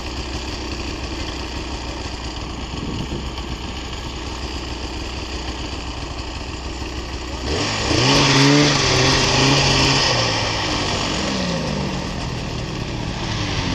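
Snowmobile engine idling steadily, then throttled up hard about halfway through: the pitch climbs as the sled pulls away across the snow, holds, then drops back near the end.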